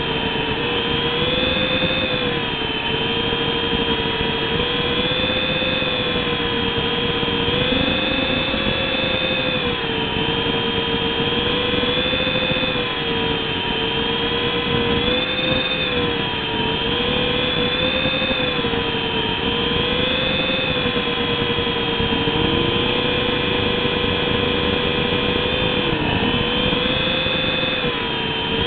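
Radio-controlled helicopter flying: a steady motor and rotor whine whose pitch rises and dips gently every few seconds as the throttle changes.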